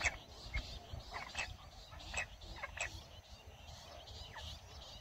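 Jungle bush quail calling: short, sharp high-pitched chirps, about ten notes scattered unevenly over a few seconds.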